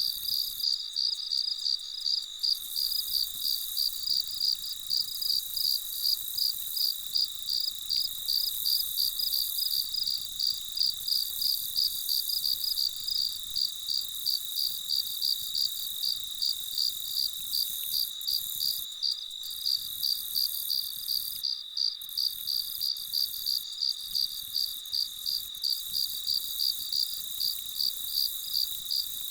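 Crickets chirping in a meadow: a steady, rhythmic high-pitched chirp, about three pulses a second, over a fainter continuous high insect hiss.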